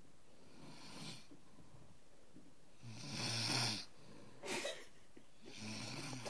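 A sleeping person snoring: several rough, rattling snore breaths, the loudest about three seconds in, with a short one after it and another near the end.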